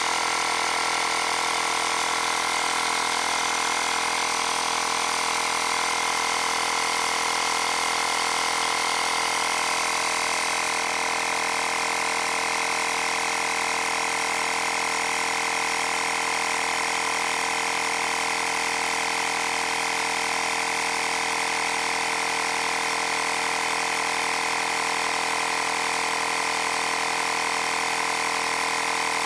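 AirHawk cordless handheld air compressor running steadily at an even pitch while pumping a car tyre up from about 28.5 psi through its screw-on valve connector.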